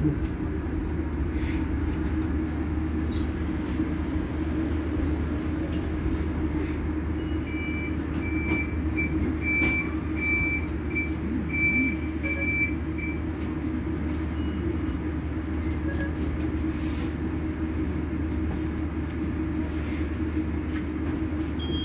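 Irizar ie tram electric bus standing at a stop, its onboard equipment giving a steady low hum. Around the middle, a run of short, high beeps repeats about one and a half times a second for some five seconds.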